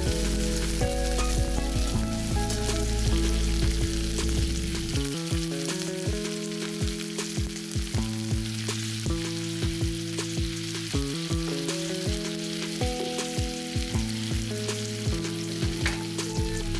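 Food sizzling as it fries in a pan, with short clicks of a utensil stirring it. Background music plays along with it.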